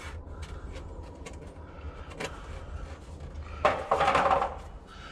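Light metallic clicks of hand tools working on sheet metal, with one short, louder scrape and clatter about three and a half seconds in.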